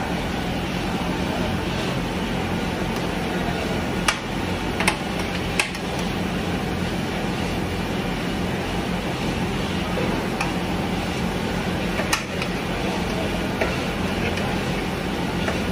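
A steady machine hum runs throughout. About four sharp clicks, three in quick succession and one later, come from metal rods knocking against a large metal pan while hot sugar syrup is pulled and twisted.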